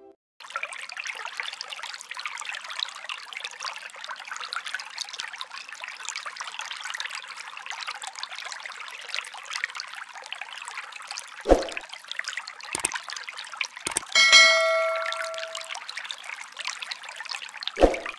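Tabletop water fountain running, water trickling steadily down its grooved back panel onto pebbles in its basin. A few sharp clicks in the second half, and a single bell-like ring about three-quarters of the way in.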